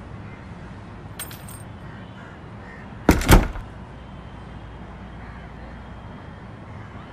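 A brief jingle of keys about a second in, then a wooden front door pushed shut with a heavy double thud as it hits the frame and latches, about three seconds in.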